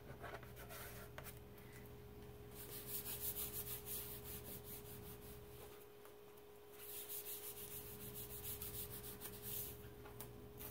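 Adhesive silk-screen transfer stencil being rubbed back and forth on a cotton towel. This is 'fuzzing', which dulls the stencil's stickiness before it is laid on the board. It gives quick, scratchy rubbing strokes in two spells, about three and about eight seconds in.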